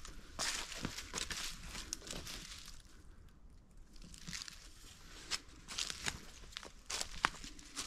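Footsteps crunching through dry fallen leaves on the forest floor, with a few sharp cracks; the steps pause briefly about three seconds in.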